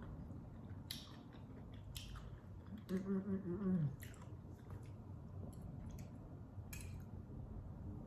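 A person chewing food close to the microphone, with wet mouth clicks and smacks every second or so. About three seconds in there is a short hummed "mmm" of enjoyment lasting about a second.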